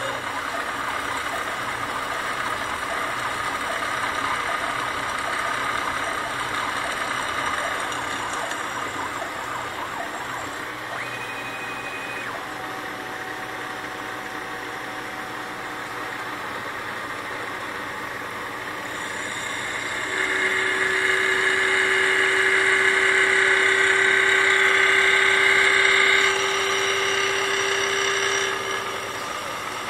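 A CNC milling machine's end mill cutting a metal plate: a steady cutting noise with a held whine. It grows louder, with stronger whining tones, about two-thirds of the way through, and eases back shortly before the end.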